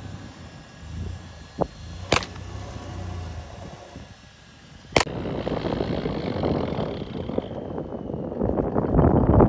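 4x4 engine running low and steady in the snow, with a few sharp clicks. About halfway through, an abrupt click gives way to a louder off-road engine working under load, with a rushing noise.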